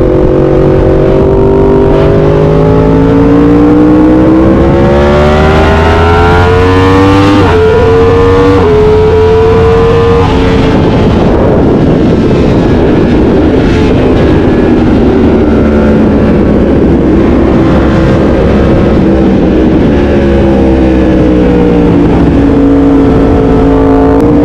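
Yamaha R1M's inline-four engine running loud through an SC Project aftermarket exhaust. Its note climbs steadily for about ten seconds, with two brief dips around seven and eight seconds in. It turns rough and dense for several seconds, then settles into a steadier, lower note near the end.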